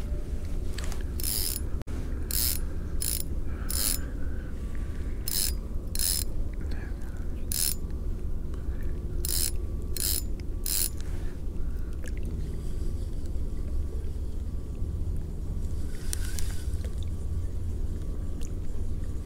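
Spinning reel being cranked to retrieve a lure on an ultralight rod, its gears running with a ratcheting whir. About ten short, sharp bursts come in the first half, and one more comes near the end.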